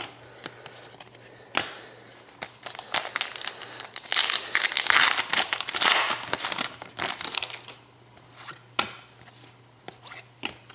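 Panini Rookie Anthology hockey card pack being torn open and its wrapper crinkled, with light clicks from the cards being handled. The crinkling is thickest in the middle.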